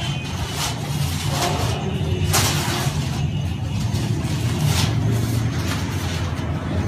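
Large paper kites rustling and crackling as they are picked up and handled, in short separate bursts, over a steady low hum.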